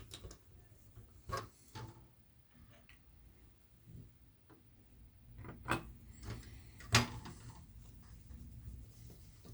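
A few sharp clicks and taps as instrument-cluster parts, the white indicator plate first, are handled and fitted back in place, the loudest about seven seconds in, over a faint low hum.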